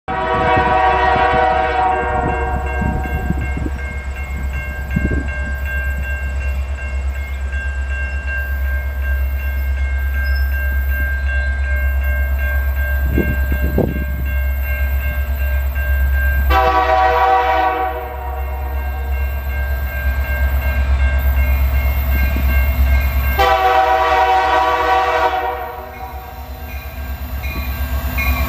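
Approaching diesel freight locomotive's multi-chime air horn sounding three times: a long blast at the start, a shorter one about 16 seconds in, and another about 23 seconds in. A low rumble from the train runs under it and grows louder near the end as the train draws close.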